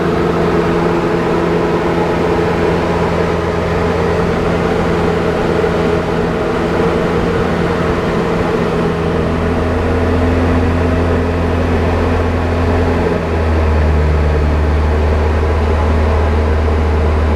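Cockpit drone of a Diamond DA40 single-engine light aircraft in flight: the engine and propeller running steadily with a loud, even hum. About thirteen seconds in, the engine note shifts lower, a change in power setting.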